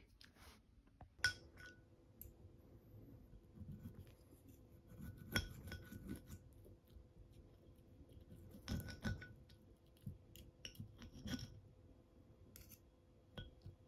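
Steel knife and fork cutting a pan-fried chop on a ceramic plate: scraping and clinking against the plate in several short bursts. A faint steady hum sits underneath.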